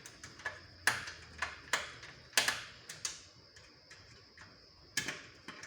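Sharp, irregular clicks and ticks of a screwdriver fastening the CPU fan's screws, several a second, thinning out about three seconds in and picking up again near the end.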